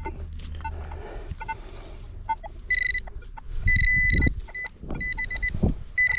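Metal-detecting pinpointer sounding about three seconds in: a high electronic tone that comes in quick pulses and longer held stretches as it is moved over the soil, signalling a large metal target not yet located. Dull thumps of handling in the hole come with it.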